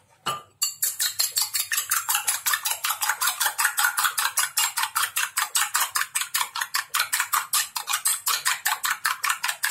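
A metal spoon beating a raw egg in a glass bowl, clinking against the glass in a rapid, even rhythm of about seven strokes a second, starting about half a second in.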